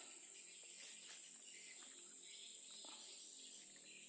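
Faint insect chorus: a steady, high-pitched drone.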